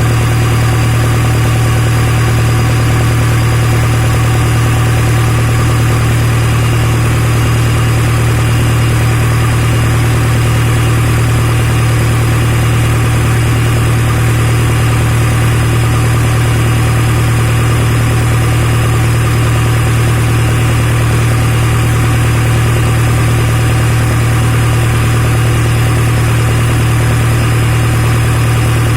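Hino J05E four-cylinder diesel engine of a Kobelco SK200-8 excavator running steadily at one constant speed, with no revving.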